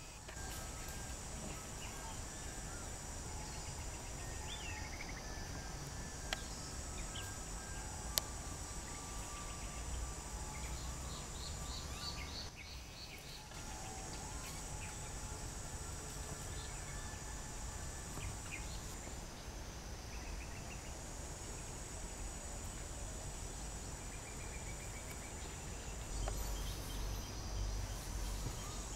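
Woodland ambience: insects buzz high and steady, dropping out briefly a few times, with scattered short bird calls. Two sharp clicks sound about six and eight seconds in.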